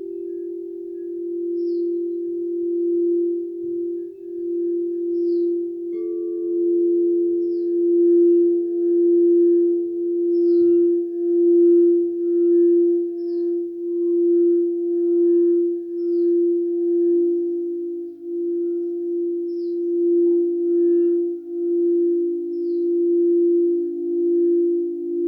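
Quartz crystal singing bowls sounding in steady, overlapping tones that swell and wobble in loudness. A higher bowl joins about six seconds in and a lower one near seventeen seconds.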